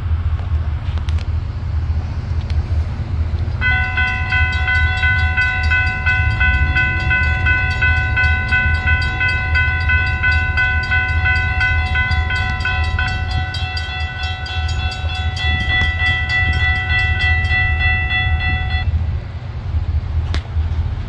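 Train horn sounding one long, steady, multi-note blast, starting about four seconds in and lasting about fifteen seconds, over a steady low rumble.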